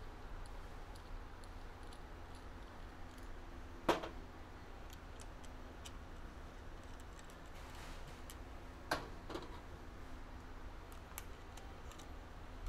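Light clicks and taps of headset parts being handled and fitted on the steer tube, with two sharper knocks about four and nine seconds in.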